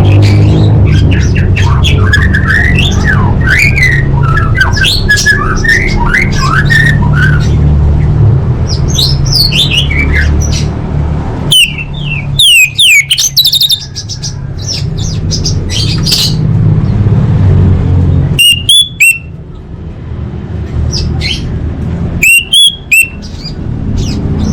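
Orange-headed thrush (anis merah) singing a varied, fast song of whistles and chirps, with several loud, sharp calls about halfway through and near the end, over a steady low drone.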